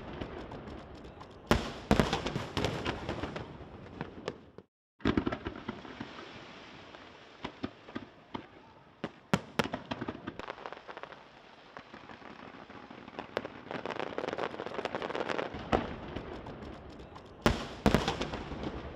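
Fireworks display: repeated sharp bangs of shells bursting, in clusters, over steady crackling. The sound cuts out completely for a moment about five seconds in.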